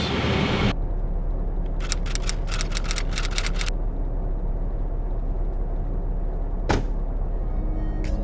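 Steady low rumble of a van driving on the highway, heard from inside the cab. A run of rapid crackling clicks comes about two seconds in, and a single whoosh near the end.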